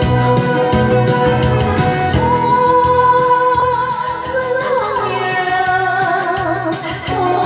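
A woman singing a Taiwanese song over a band backing with a steady beat. She holds a long note, then sings a short run of sliding notes about five seconds in.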